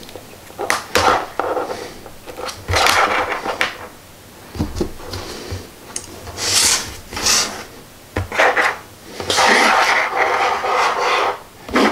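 Handling noise on a tabletop: irregular scraping, rubbing and clicking bursts as a small hand-built circuit and its alligator-clip test leads are moved and clipped together.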